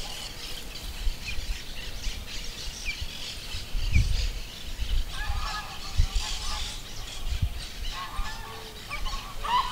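Outdoor birdsong by a pond: many short high chirps throughout, joined by louder, lower calls of larger birds about halfway through and again near the end. A few low thumps come in among them.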